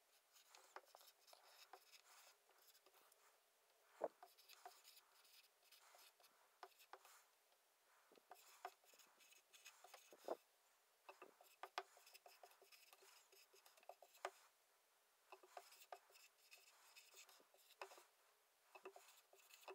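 Dry-erase marker writing on a small whiteboard: faint scratchy strokes and light taps of the tip, coming in irregular stop-start clusters.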